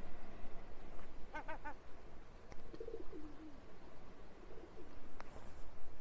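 Seagull calling: a quick run of four short notes about a second and a half in, followed by lower, softer drawn-out calls, with a single sharp click near the end.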